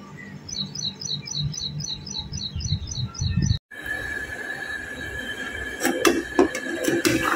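A small bird chirping in a quick series, about five short high notes a second for nearly three seconds, over a low rumble. After an abrupt cut, a steady high-pitched tone and a few clinks of a metal ladle against an aluminium saucepan on a gas stove.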